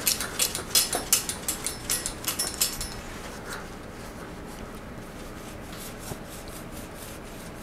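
Grime being scrubbed off a bicycle frame's head tube by hand: a quick run of short scratchy wiping strokes for about three seconds, then only a low steady hum.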